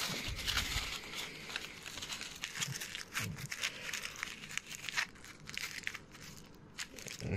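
Tinfoil wrappers from chocolate eggs crinkling and crackling as they are squeezed and rolled by hand into a ball, with a dense, irregular run of small crackles.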